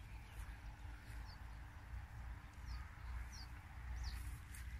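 Faint outdoor ambience: a bird giving short, falling chirps about once a second over a low rumble.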